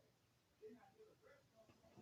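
Near silence: room tone with faint, indistinct distant murmur and small noises.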